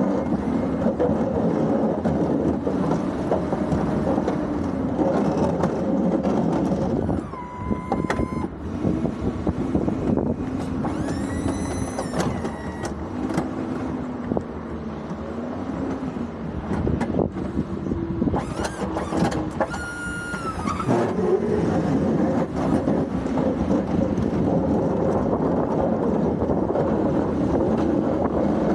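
Ford F-350 pickup's engine running as the truck plows, its pitch rising and falling with the throttle, over a steady rush of road and wind noise. A few brief high squeals or whines come partway through.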